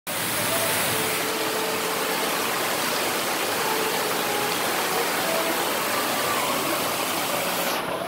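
Steady hiss of water spraying and splashing from a water-play structure's fountains and jets, with faint children's voices in the background. The hiss cuts off suddenly near the end.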